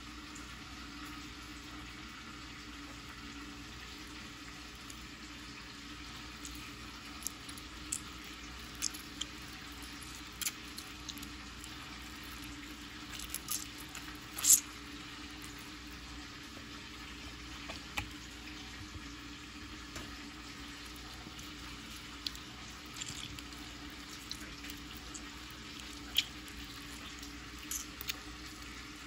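Scattered light clicks and taps from hands working over a raw whole fish on a plate, about a dozen in all, the sharpest about halfway through, over a faint steady kitchen hum.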